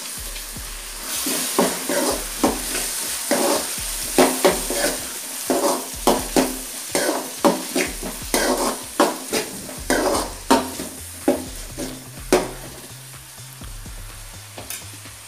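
Chopped tomatoes frying with onions in hot oil in an aluminium kadai, sizzling, while a steel ladle stirs them, scraping and knocking against the pan about twice a second. The stirring stops near the end and the sizzle goes on.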